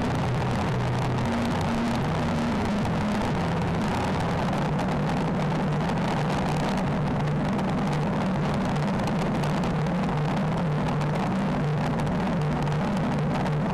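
Triumph Trophy 1215 motorcycle riding at motorway speed, picked up by its dash cam: steady wind and road noise with a humming engine note that shifts slightly in pitch.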